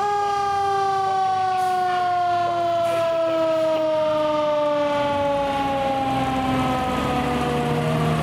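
A fire engine's siren in a single long wail that falls slowly and steadily in pitch after a quick rise just before, with the truck's engine under it.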